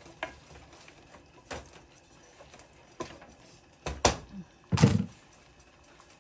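Cookware being handled: a string of separate knocks and clanks of pan and utensils. The loudest two come about four and five seconds in, the last with a heavier thud.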